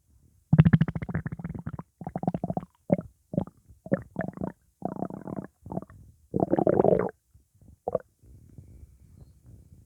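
Upset human stomach rumbling and gurgling, which the owner puts down to gas from pizza. A long gurgle comes about half a second in, then a run of short gurgles, a loud one about two-thirds of the way through, and faint gurgles near the end.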